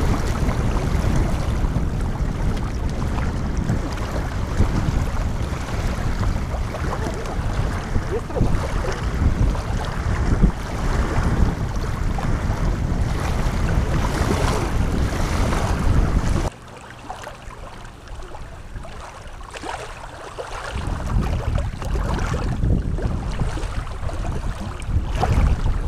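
Wind buffeting the microphone: a loud, steady rumbling noise heaviest in the low end. It drops away abruptly about two-thirds of the way through, then builds back up near the end.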